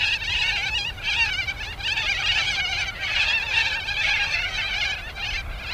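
A flock of birds calling together: a continuous chatter of many overlapping, wavering high chirps.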